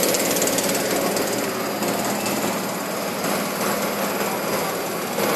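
TiPTiG hot-wire TIG welding running: a steady, fast buzzing rattle with a low hum underneath.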